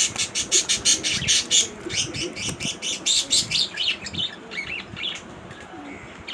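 Baby budgerigar chirping in a fast run of short, high chirps, about five a second, thinning out to a few scattered calls after about four seconds.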